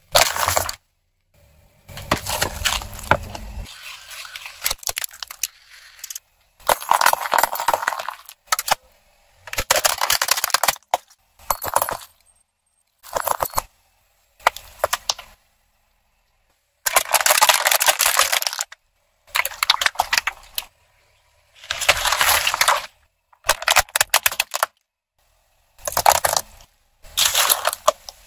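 Car tyre rolling over and crushing things: aluminium drink cans and plastic bags of liquid. It comes as a series of separate crunching, cracking bursts a second or two long, each cut off suddenly into silence before the next.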